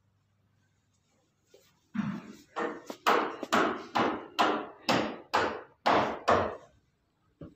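A run of about ten sharp knocks, roughly two a second, each ringing briefly before the next, starting about two seconds in and stopping shortly before the end.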